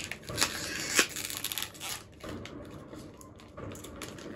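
A small gift box being opened by hand: paper and cardboard crinkling and scraping, with a few sharp clicks in the first two seconds, then quieter handling.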